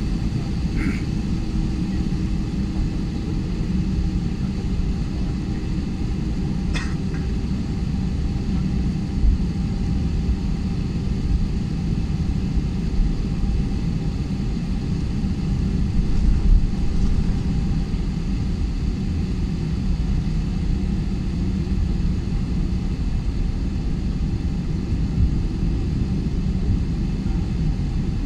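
Airliner cabin noise while taxiing before takeoff: a steady low rumble of engines and wheels heard from inside the cabin, with a couple of faint clicks in the first seven seconds.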